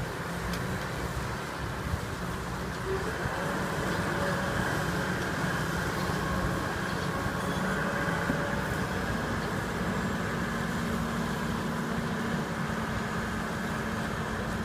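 Heavy diesel construction machinery (excavator and concrete mixer truck) running steadily, with a constant low engine hum.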